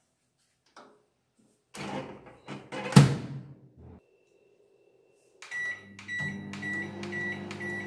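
Convection microwave oven being loaded and started: a metal cake pan clatters on the turntable and the door shuts with a knock about three seconds in, then a faint button beep. From about five and a half seconds the oven runs with a steady hum and a faint repeating tick.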